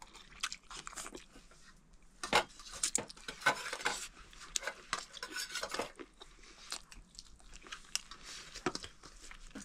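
People eating: dishes and cutlery clinking and scraping, in irregular scattered clicks.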